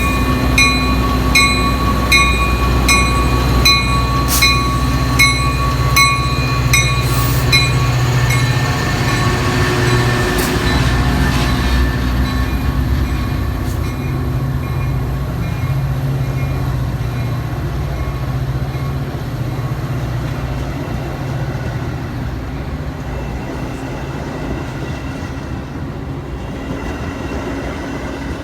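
Metra commuter train with a diesel locomotive rumbling past on the rails. For the first several seconds a grade-crossing bell rings in a steady rhythm, then stops, and the train's noise slowly fades.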